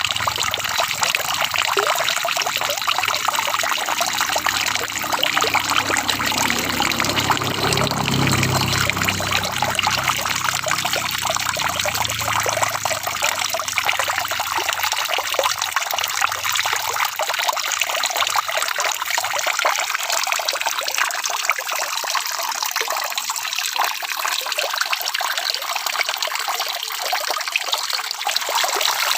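Steady rain falling, a dense patter of drops. A low rumble sits under it in the first half and fades out about halfway through.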